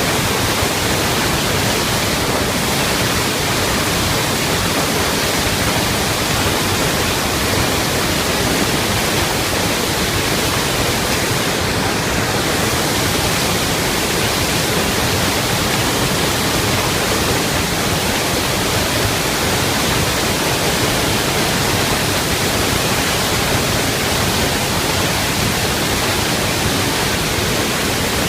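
Iguaçu Falls thundering: a loud, steady rush of falling water, unchanging throughout.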